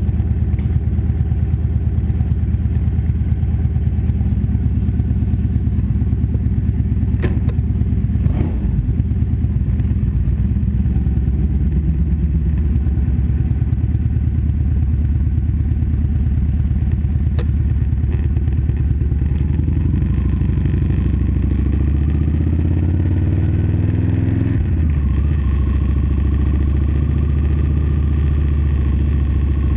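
2012 Victory Vegas 8-Ball's V-twin engine running at a loud, low steady idle, with a couple of sharp clicks about seven to eight seconds in. Later the engine pulls away and revs up, its pitch rising, then drops suddenly near twenty-five seconds as it shifts and climbs again.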